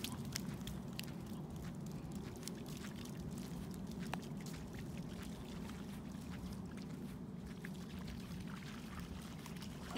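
Shallow water splashing and trickling: a steady wet rush with many small splashes and drips.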